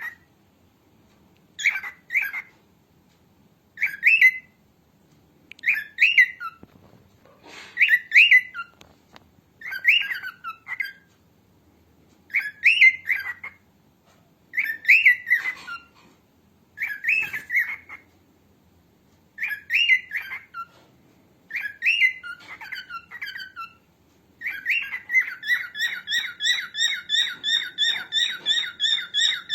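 Female cockatiel calling: short, rising two-part chirps about every two seconds, then, near the end, a fast unbroken run of repeated chirps, several a second.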